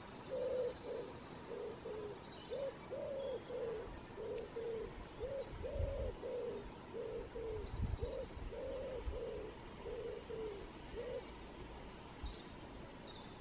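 A bird calling in a long series of short, low hooting notes, about two a second and loosely grouped in twos and threes, stopping about eleven seconds in.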